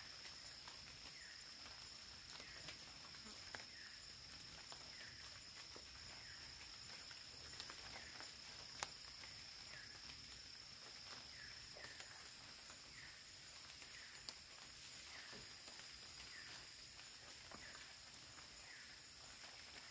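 Rainforest insects droning steadily at a high pitch, with a short chirp repeating about once a second. Faint clicks and rustles from handling a tarp and its strap, one sharper click a little before halfway.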